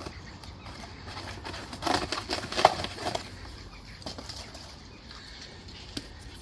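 Rustling and clattering of bike parts and wrapping being handled while unpacking the folded handlebars of a folding e-bike, with a cluster of louder knocks and rustles about two to three seconds in and scattered clicks otherwise.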